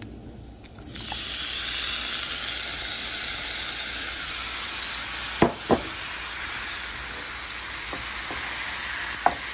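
Undrained canned diced tomatoes sizzling in a hot pan of browned ground beef; the steady sizzle starts about a second in. Two sharp knocks in quick succession about halfway through, and another near the end.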